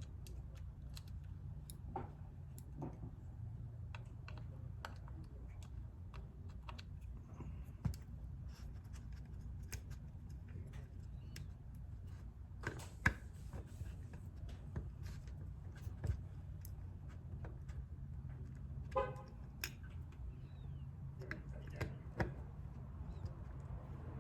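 Small irregular clicks and taps of a screwdriver and small metal and plastic parts as a little screw is worked into an outboard carburetor during reassembly, over a steady low hum. A short pitched squeak sounds about 19 seconds in.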